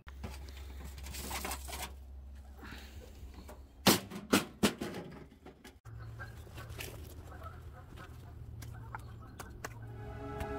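A bird calling outdoors: a short loud run of rapid harsh notes about four seconds in, with a few fainter calls later, over a faint steady low rumble.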